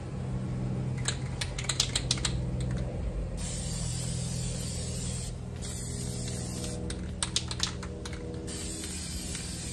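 Aerosol can of triple-thick crystal clear glaze spraying in three long hissing bursts, the first starting about a third of the way in and the last near the end. Clusters of sharp clicks come before the first and the last burst.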